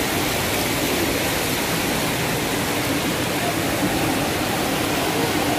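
Waterfall rushing steadily: a constant, even wash of falling water.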